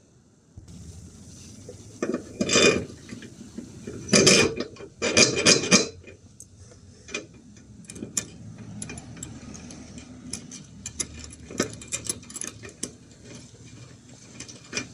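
Metal eye bolt being screwed by hand into a freshly drilled hole in a steel trailer stay: a run of small metallic clicks and scrapes as the threads turn. Several louder scraping noises come in the first few seconds, before the clicking.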